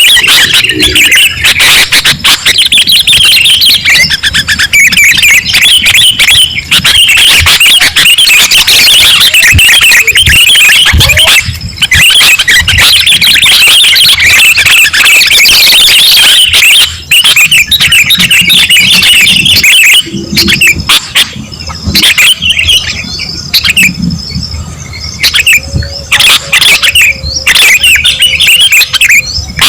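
Sooty-headed bulbuls singing and chattering: a dense, continuous stream of loud, bubbling calls for about twenty seconds, then breaking up into separate short phrases with brief gaps.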